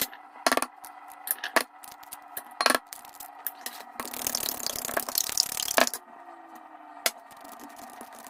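Kitchen preparation sounds: sharp clicks and knocks of utensils over a steady hum, with a dense noisy rush lasting about two seconds in the middle.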